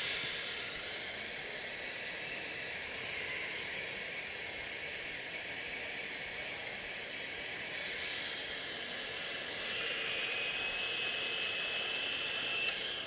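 Electric burr coffee grinder grinding beans on a finer setting: a steady grinding noise that grows louder, with a thin whine added, about ten seconds in, and stops abruptly just before the end.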